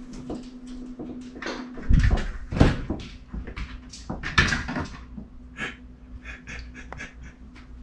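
Thumps and knocks of handling at a door, loudest between about two and five seconds in, then a quick run of light clicks, over a steady low hum.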